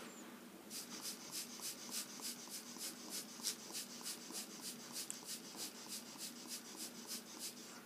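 Tim Holtz Distress Marker Spritzer squeezed over and over, each squeeze sending a short hiss of air across the marker tip to spray ink, about four a second. The run starts about a second in and stops just before the end.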